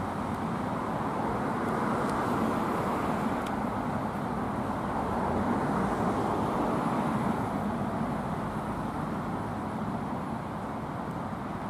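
Steady road traffic noise from passing cars, swelling and easing as vehicles go by.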